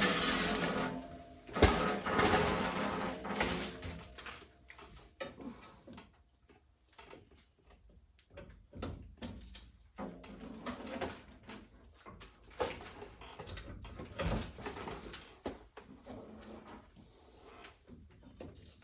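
Scattered metal clicks and knocks from hands and tools working on a car's hood latch and hood, with one sharp knock about one and a half seconds in.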